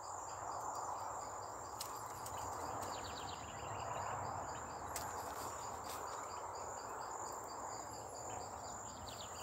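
Insects in grass and weeds: a steady high buzz with a rhythmic chirping of about four pulses a second, over a steady background rush, with a couple of sharp clicks.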